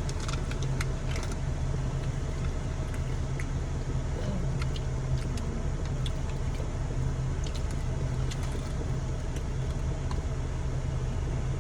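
Steady low hum inside a car with the engine running, with a few light clicks and rustles, most of them in the first second.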